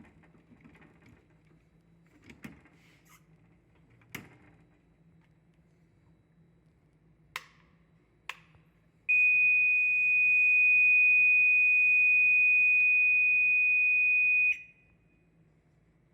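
A fire alarm buzzer sounds one loud, steady high-pitched tone for about five seconds, then cuts off abruptly. A few sharp clicks come before it.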